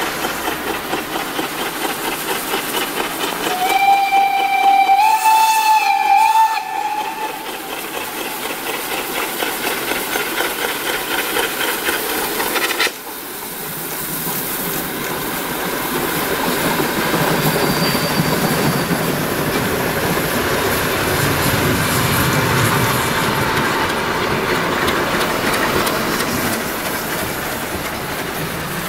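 Steam locomotive running with a rhythmic exhaust chuff. Its steam whistle sounds for about three seconds a few seconds in, stepping slightly up in pitch, and is the loudest thing heard. After a sudden change about halfway through, the train comes by close, its exhaust and the rumble and clatter of the coaches' wheels growing louder.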